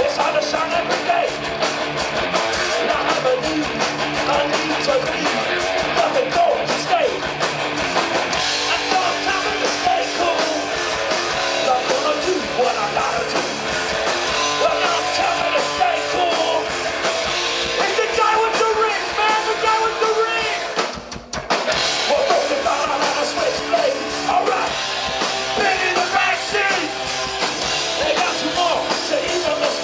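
Live rock band playing, with singing over electric guitar and drum kit, in a punk-rock style. The music drops out for a brief break about two-thirds of the way through, then comes back in.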